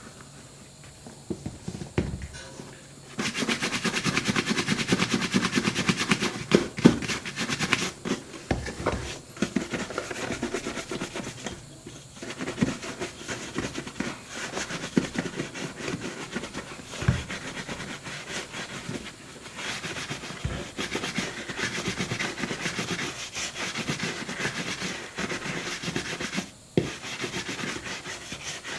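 Horsehair brush stroked rapidly back and forth over a leather boot, shining in the shoe cream. It starts about three seconds in after a few light knocks, and breaks off briefly twice.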